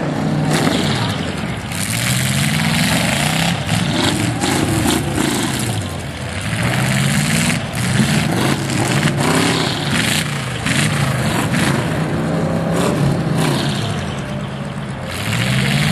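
Demolition derby car engines revving hard over and over, the pitch climbing and falling several times, as the cars shove against each other. Scattered knocks and crunches run through the revving.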